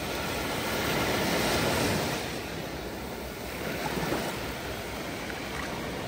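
Small ocean waves breaking and washing up over sand. The surf swells louder about a second in, eases off after two seconds and rises briefly again near four seconds.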